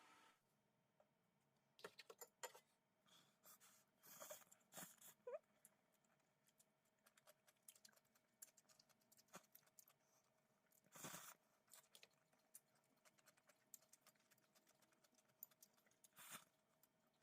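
Near silence: faint scattered clicks and a few brief rustles over a faint steady hum.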